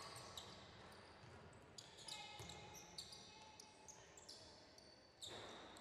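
Faint basketball-game sounds on a hardwood gym floor: many short, high sneaker squeaks and scattered ball bounces and footfalls. There is a sudden louder thump near the end.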